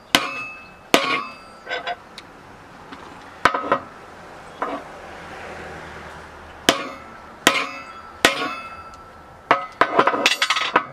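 Sledgehammer striking a steel bearing driver seated in the hub of a cast-iron bandwheel, driving out the worn bearings. About nine sharp metallic blows, each with a brief ring, come roughly a second apart with a pause in the middle. A quick cluster of lighter clinks and knocks follows near the end.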